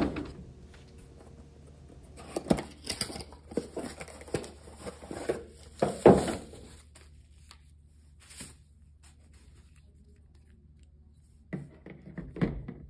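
Unboxing a starter motor: a cardboard box being handled and opened, with tearing and crinkling packaging between a few sharp knocks. After a quiet stretch, the metal starter is set down on the table near the end.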